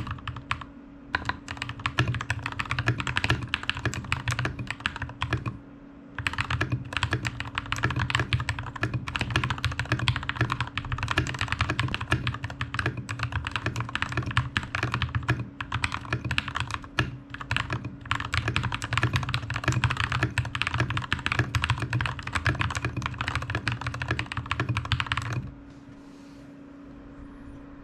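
Fast, continuous typing on a TM680 V2 mechanical keyboard, with brief pauses about a second in and about six seconds in. The typing stops shortly before the end, leaving a steady low hum.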